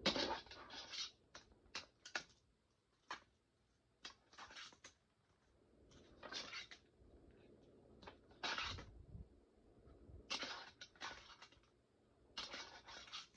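A cheap plastic fingerboard clacking and scraping against plastic skatepark ramps and ledges during hand-slap tricks. About a dozen irregular sounds: some sharp clicks, some short scrapes lasting about half a second.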